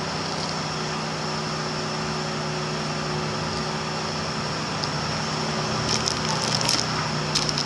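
Steady background hum and noise, with crackling handling sounds in the last couple of seconds.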